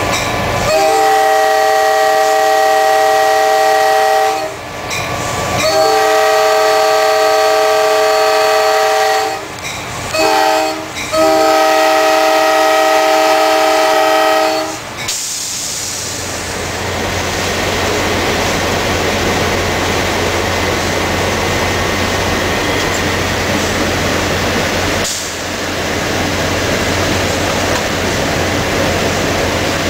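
Nathan K5LA chime air horn on an EMD FL9 diesel locomotive sounding the grade-crossing signal: long, long, short, long, a chord of several notes. After the last blast, about fifteen seconds in, only the steady running noise of the locomotive's EMD 567 engine and wheels is heard in the cab.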